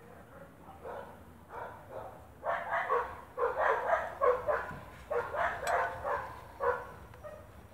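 Dog barking: a few faint short barks, then from about two and a half seconds in a quick run of louder short barks, about three a second, that stops shortly before the end.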